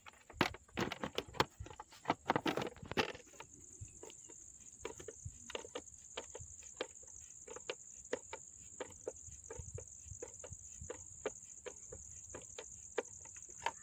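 Plastic headlight visor of a Honda motorcycle being pushed and knocked into place, a cluster of rattles and knocks over the first few seconds. Then a screwdriver tightens the visor's screw, with sharp small clicks about once or twice a second.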